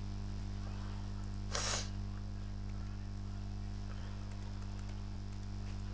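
Steady low electrical hum, with one short breathy burst from a person about one and a half seconds in.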